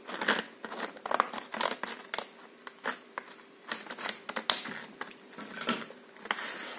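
Scissors snipping through a stiff plastic blister pack, then the plastic shell and cardboard backing being pulled apart and handled: a run of irregular sharp clicks and snips with rustling between them.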